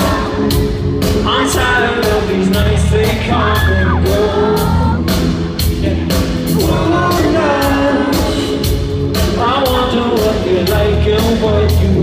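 Live pop-rock band playing through a theatre PA, with electric guitars, keyboard and a steady drum beat under singing.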